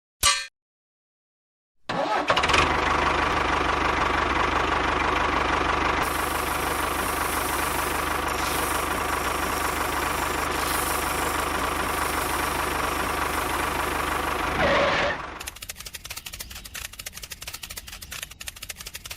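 A small motor running steadily for about thirteen seconds, then cutting out into a quieter, fast rattling clatter. A single sharp click comes just before it starts.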